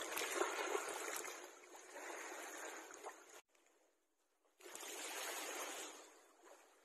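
Small waves washing over a pebbly shore. The sound cuts off abruptly about three seconds in and comes back a little over a second later.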